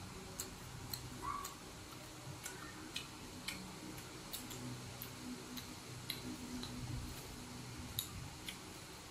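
Wet mouth clicks and smacks of people chewing ripe mango, irregular and close to the microphone, over a faint low hum.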